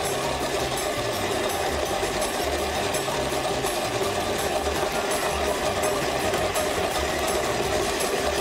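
Electric stand mixer running steadily on its lowest speed, its flat beater working flour and water into a bread dough.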